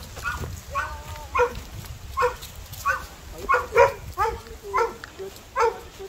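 A dog barking over and over in short barks, about ten of them, roughly two a second.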